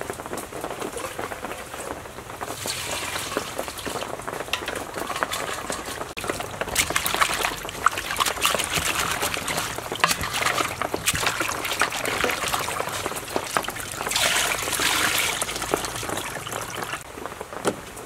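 Water sloshing and splashing in a stainless steel bowl as dried fish are rubbed and rinsed by hand, in uneven louder and quieter spells with small clicks.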